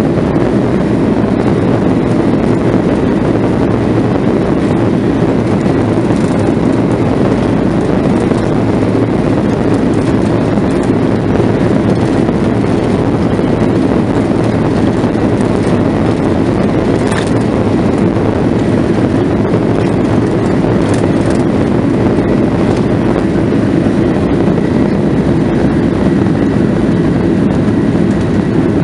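Boeing 737-900ER heard from the cabin during its takeoff roll: the CFM56-7B turbofan engines at takeoff power and the rumble of the wheels on the runway make one loud, steady noise. A few faint clicks come through it.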